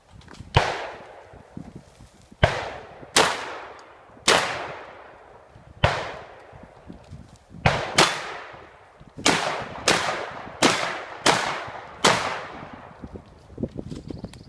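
Shotgun firing about a dozen shots at an uneven pace, some pairs close together, each report trailing off in echo.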